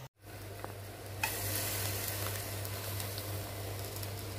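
Marinated whole fish sizzling on the hot grill plates of an electric sandwich maker, a steady frying hiss. There is a click about a second in, after which the sizzling is louder, over a low steady hum.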